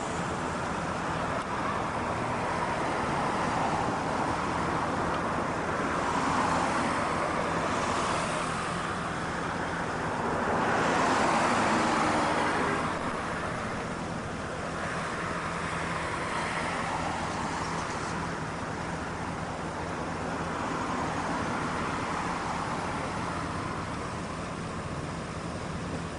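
Road traffic: cars passing on the street, swelling and fading several times, the loudest pass a little before halfway through, over a steady low hum.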